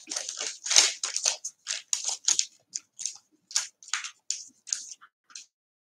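A sheet of paper crinkling and rustling in the hands as it is peeled off and folded up: a quick, irregular run of short crackles.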